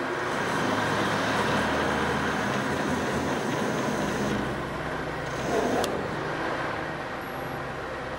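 WEISS WBL290F bench lathe running under power while a threading tool cuts a thread on a metal rod turning between centres: a steady mechanical running noise from the motor and gear train, with a sharp click a little before six seconds in.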